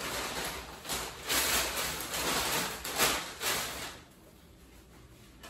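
Plastic sheeting rustling and crinkling as it is handled and wiped down, in several louder surges, stopping about four seconds in.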